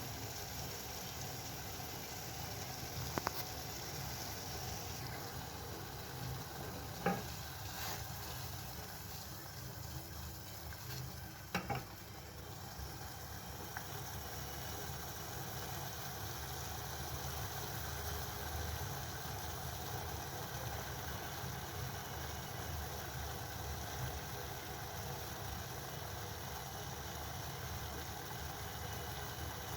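A pan of water with tulsi leaves boiling on the stove, a steady bubbling hiss as the tea brews. Three sharp clicks come in the first dozen seconds.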